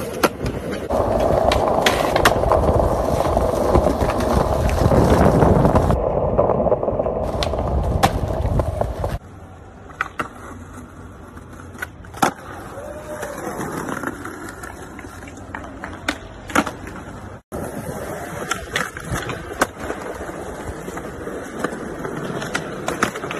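Skateboard wheels rolling over concrete, broken by sharp clacks of the board popping and landing. The rolling is loudest for the first nine seconds, then the sound drops abruptly and more scattered clacks follow.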